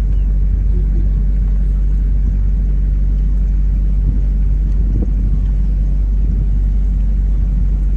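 Passenger boat's engine running steadily: a loud, even low drone with a constant hum.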